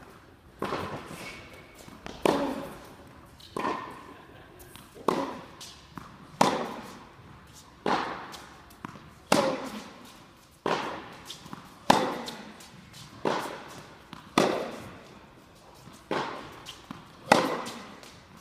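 Tennis ball struck by a racket and bouncing on an indoor hard court during a rally, sharp hits about every second and a half, each one echoing in the hall.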